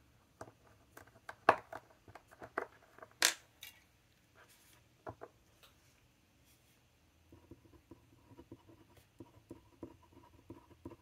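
Quiet desk-handling sounds: paper swatch cards slid and tapped, with a sharp click about three seconds in. Near the end comes a run of light taps and scratches as a glass dip pen works at a small open ink sample vial.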